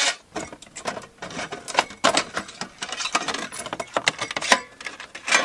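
Dog-door flap cut from a camper's ribbed metal siding, rattling and clicking against its frame as a hand pushes through it from inside: a quick, irregular run of sharp clicks.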